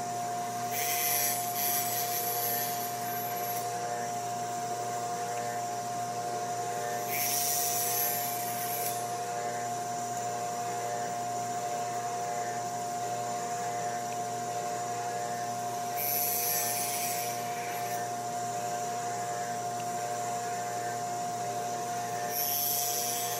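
Table saw motor running with a steady whine, while four short cuts go through wood, each a hiss lasting one to two seconds, spaced several seconds apart.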